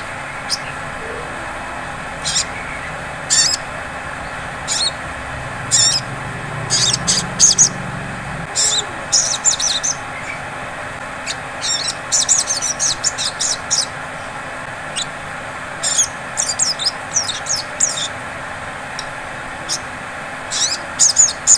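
Sogon, a small sunbird-family songbird, giving short, sharp, high chirps, sometimes singly and sometimes in quick runs of several, over a steady background hiss; the calls of a female sogon calling a male, used as a lure to set caged sogon singing.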